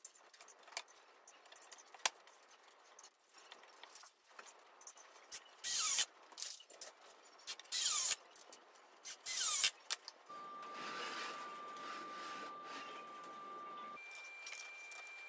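Cordless drill/driver driving screws into plywood in three short bursts, each with a rising whine as the motor spins up, among small clicks and handling taps. After that comes a steady hiss with a thin steady tone.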